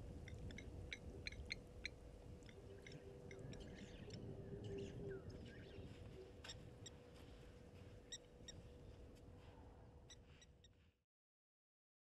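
Faint outdoor bird calls: many short, scattered chirps, with a low hooting call from about two and a half to six seconds in, over a steady low hum. The sound cuts off suddenly about a second before the end.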